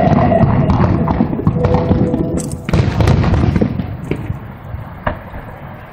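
Aerial fireworks display: a dense barrage of shells bursting in quick overlapping bangs, with a loud burst about three seconds in. It then thins out to a couple of single sharp cracks near the end.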